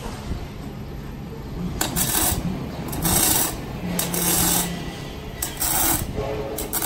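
Hand-held electric arc torch working on the steel pole, giving a rough hiss in short bursts of about half a second with brief pauses between, starting about two seconds in.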